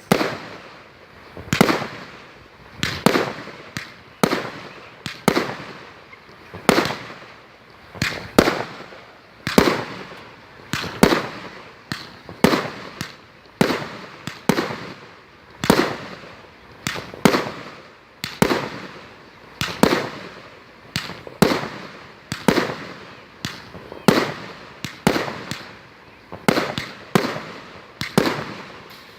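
Fireworks going off in quick succession, a sharp boom about every second with each one trailing off.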